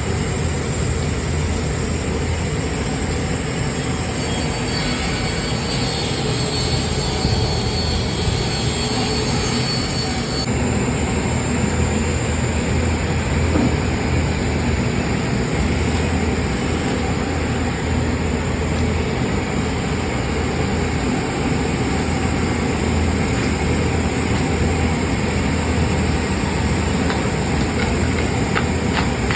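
Powered wood-cutting saw machine running steadily under load as it cuts through solid wood, a low motor hum under a dense, even cutting noise. A higher whine joins from about four to ten seconds in.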